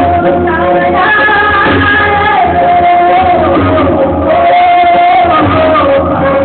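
A mixed group of men and women singing a song together into microphones, with long held notes.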